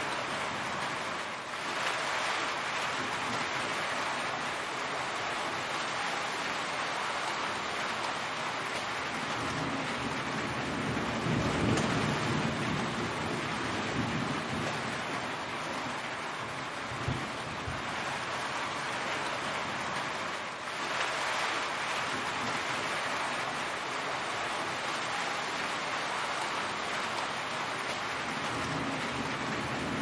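Heavy rain falling steadily, with a low rumble swelling up about ten seconds in and again at the very end.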